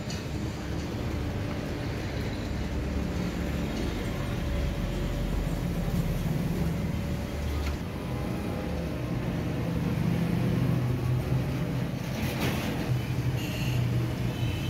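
Steady low background rumble, with a brief rustle near the end.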